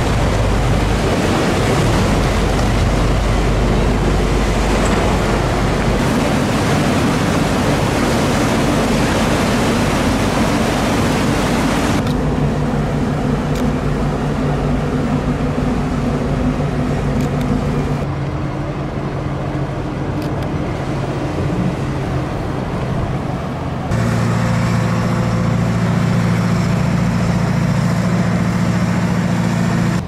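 Loud rush and splash of water as a cargo ship's hull hits the canal in a sideways launch, with a deep rumble in the first few seconds. About halfway through the water noise dies down and a steady engine hum takes over, growing louder again near the end.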